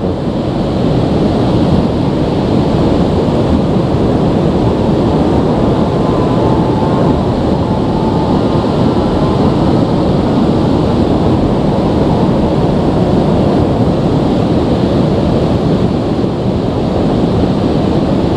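Shallow river rushing over rocks and small rapids: a steady, loud rush of water.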